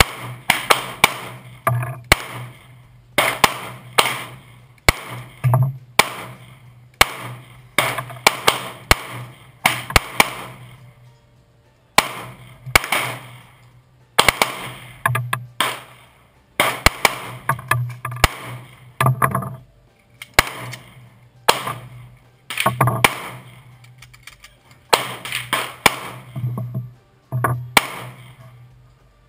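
Two handguns fired by two shooters in overlapping strings: dozens of sharp shots at irregular spacing, each ringing briefly under the covered firing line's roof, with a short pause about halfway through.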